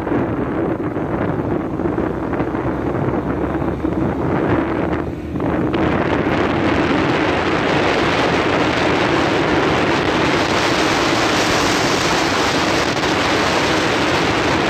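Wind rushing over the microphone of a moving scooter, with the scooter's engine running steadily underneath. The rush grows louder about six seconds in.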